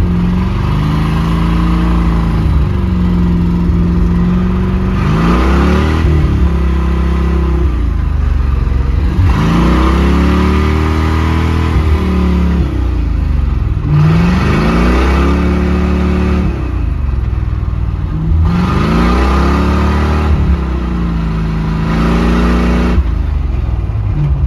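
A stuck vehicle's engine revving up and easing off over and over, about every four to five seconds, as its wheels spin on ice without gaining traction.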